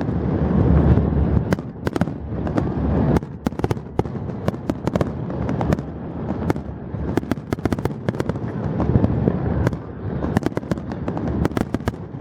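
Fireworks display: shells bursting with deep rumbling booms under a dense, irregular crackle of many sharp cracks.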